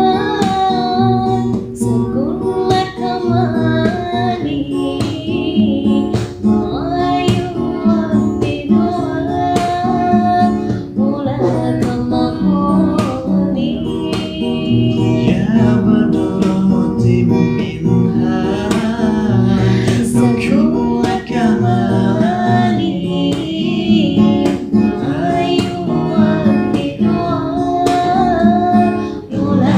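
A woman singing a sholawat (Islamic devotional song) to a strummed acoustic guitar.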